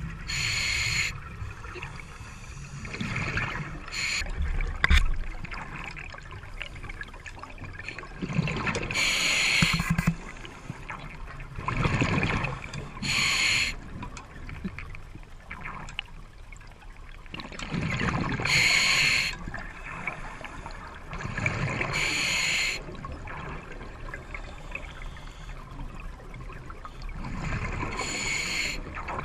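A scuba diver breathing underwater through a regulator, heard in a camera housing: breaths come every few seconds, each a brief hiss with a bubbling gurgle.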